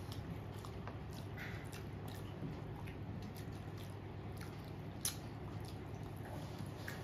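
Close-up eating sounds of a person chewing rice and curry: soft wet mouth clicks and smacks, with one sharper click about five seconds in, over a steady low hum.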